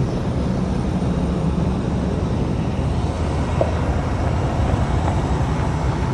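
Farm tractor engine running steadily while pulling a grain cart, a continuous low rumble.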